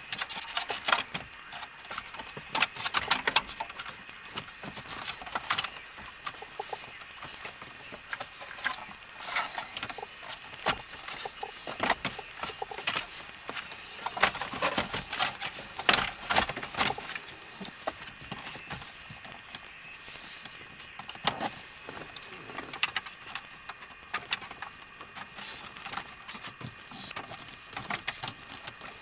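Irregular clicks, taps and rattles of small hard parts being handled, scattered unevenly with no steady rhythm.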